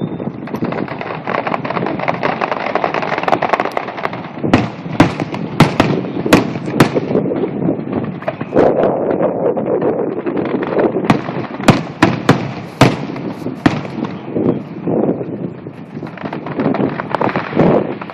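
Fireworks display: a continuous crackle with many sharp bangs, coming thick and fast through the middle.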